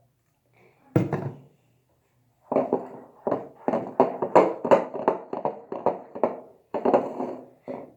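Household banging: one loud thud, then a quick, irregular run of knocks and bangs, the noise of a fan being assembled with tools.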